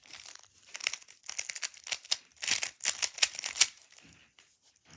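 Rubik's Cube being scrambled: quick plastic clicking and clattering as its layers are twisted, stopping about three and a half seconds in.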